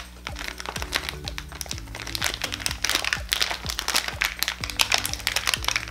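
A snack's plastic wrapper crinkling and crackling as hands work at opening it, over background music with a steady beat.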